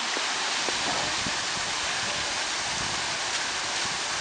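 Flowing river water running through piled rubbish, a steady rushing hiss.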